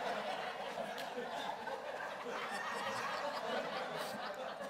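Audience laughter from a congregation.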